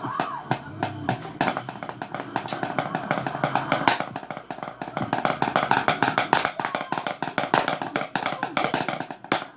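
Drumsticks striking a hard flat surface in a fast, rapid stream of strokes, played as a drum pattern.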